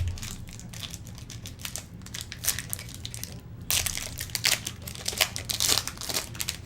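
Crinkling and tearing of a basketball trading-card pack's wrapper being handled and torn open, an irregular crackle that gets louder over the second half.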